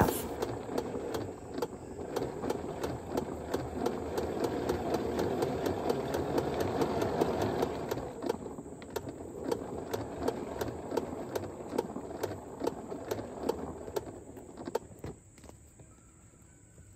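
Hoselink retractable hose reel winding its hose back in: a steady mechanical whirr with regular clicking from the reel's spring-driven retraction. It thins out after about halfway and stops near the end as the hose is fully wound.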